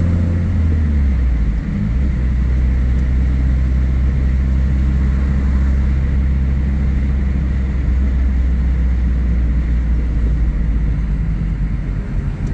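Car engine and road noise heard from inside the cabin while driving: a steady low hum, with the engine note dropping about a second and a half in.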